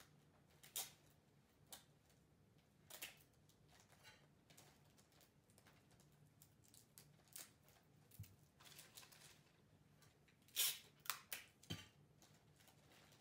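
Wrapping paper being handled as a present is wrapped: scattered faint crinkles and crackles, with a few louder ones in quick succession near the end.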